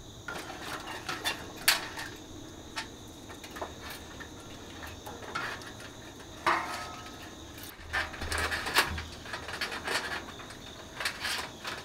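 Outdoor AC condenser's wire fan guard and fan-motor assembly clattering as it is handled and lifted off the unit: irregular metallic clicks, rattles and knocks, with a few low thumps about eight seconds in. A steady cricket trill runs underneath.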